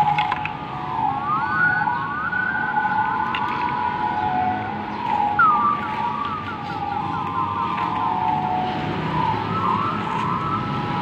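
An electronic siren sounding in runs of fast, repeated rising chirps over a steady tone, switching to a new chirp pattern every few seconds.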